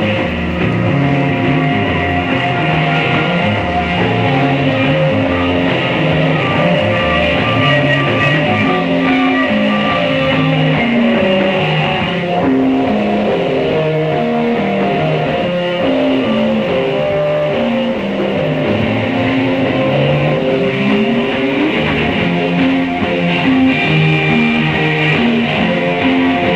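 Guitar-led rock music playing steadily, with a moving bass line.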